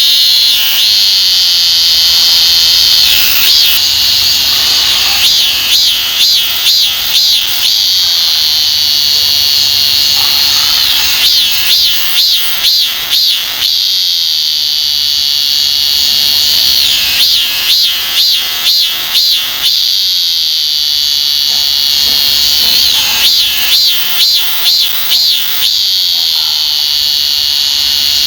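A Hyalessa fuscata cicada (Korean chammaemi) singing. A steady buzz of a few seconds breaks into a run of pulsed 'maem-maem' notes, about two or three a second, then settles back into the buzz. The cycle repeats about four times.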